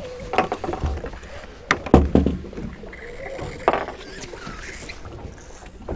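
A freshly landed sheepshead flopping and slapping on a fiberglass boat deck: a few sharp knocks, the loudest about two seconds in.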